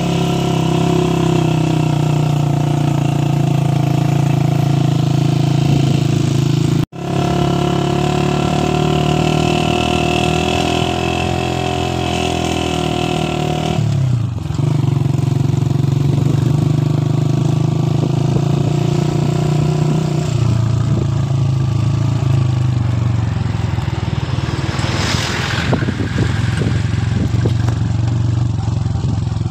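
A vehicle engine runs steadily while driving. Its pitch drops about halfway through and again a few seconds later. The sound cuts out for an instant about seven seconds in.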